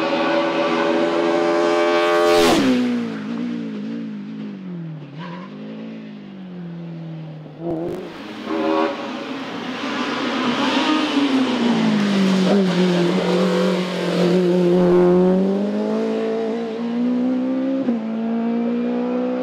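BMW E30 M3 hillclimb race car revving hard, its engine note climbing and dropping several times as it accelerates and lifts through the bends. About two and a half seconds in there is a brief sharp noise as the revs drop steeply.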